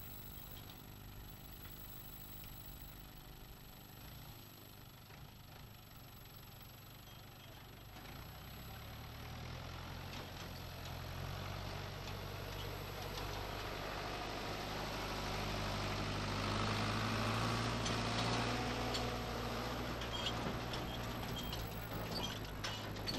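Farm tractor's diesel engine running, faint at first, then growing steadily louder from about eight seconds in as the tractor pulls its trailer past, loudest about two-thirds through.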